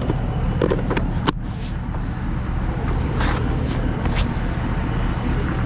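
A vehicle engine idling with a steady low hum. There are a few sharp clicks and knocks in the first second and a half, and three short hisses a little past the middle.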